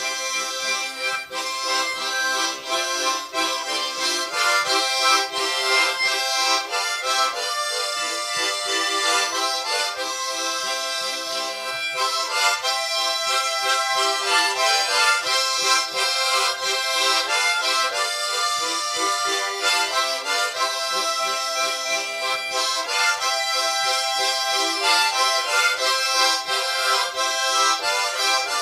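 A harmonica ensemble of eight players performing a tune together, many harmonica notes sounding at once as chords and melody, with no bass underneath.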